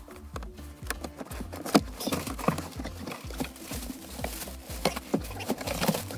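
Irregular clicks, knocks and clatter of handling work, over background music with a pulsing low bass.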